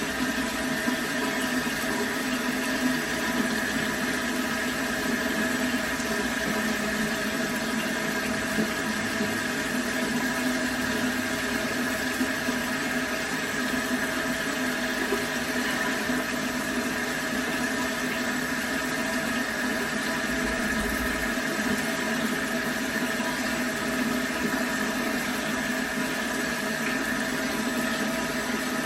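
Bathroom sink faucet running steadily into the basin, a constant rush of water with a faint steady hum in the pipes.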